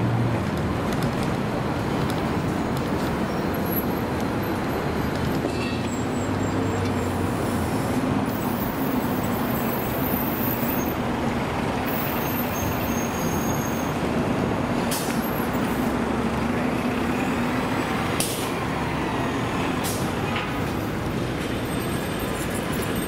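City street traffic: a steady wash of passing vehicles with the low drone of heavy engines such as buses or trucks, and a few brief sharp knocks in the second half.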